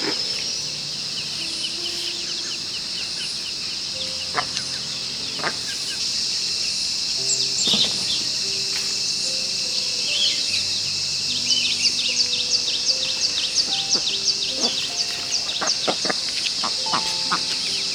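Soft background music of slow, held notes over a steady high insect drone, with birds chirping; from about eleven seconds in, a quick run of chirps at roughly three a second.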